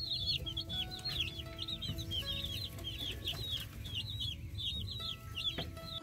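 Young Cornish Cross meat chicks peeping nonstop: a dense stream of short, high chirps, several a second, each dropping in pitch.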